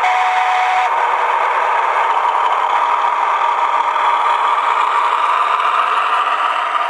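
Diesel engine sound from a Massoth sound decoder, played through the speaker of a G gauge USA Trains model diesel switcher as it runs, steady and rattly and thin, with no deep bass. A brief high steady tone sounds for about the first second.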